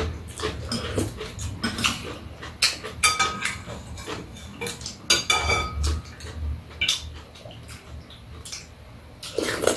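Metal spoon and chopsticks clinking and scraping against bowls and a pot, many short clicks with a few ringing briefly, along with chewing and other mouth noises of people eating.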